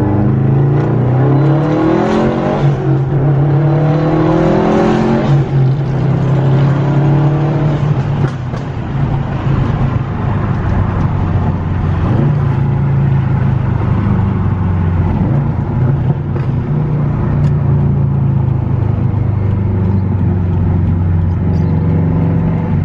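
2013 Subaru WRX STI's turbocharged flat-four with an aftermarket exhaust, heard from inside the cabin, accelerating hard in a short pull. The engine note climbs, dips at a gear change about two seconds in, and climbs again until about five seconds in, then settles to steadier running.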